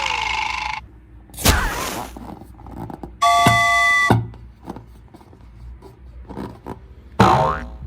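A string of short sound effects: a hiss at the start, a thud about a second and a half in, a chime of several steady tones held for about a second, and a quick sweeping tone near the end.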